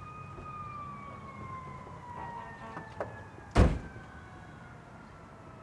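A car door clicks open about three seconds in and is shut with a loud thud a moment later, as the passenger climbs out. Under it runs a long siren tone that slowly falls in pitch.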